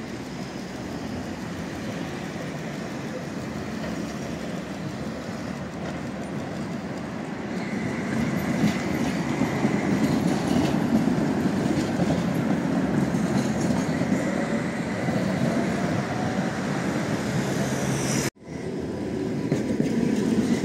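An articulated Tatra tram comes nearer and passes close by on street track, its wheels rumbling on the rails with a thin high squeal at times and a faint rising motor whine as it goes by. After a sudden cut near the end, a second tram rolls along beside a stop.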